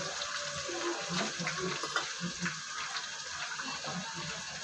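Onions, garlic and green chillies sizzling in hot oil in a kadhai: a steady hiss with small crackles.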